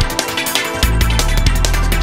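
Electronic dance music with a fast, steady beat; the heavy bass drops out at the start and comes back in a little under a second in.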